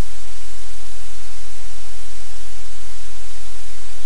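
Loud, steady hiss of static noise with a low hum beneath it, unchanging throughout.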